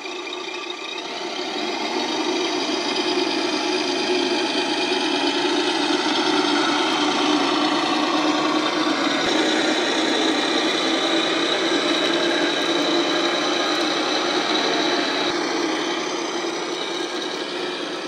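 Radio-controlled semi truck's engine sound running steadily after start-up, getting louder about two seconds in, with a high steady whine over it for part of the time.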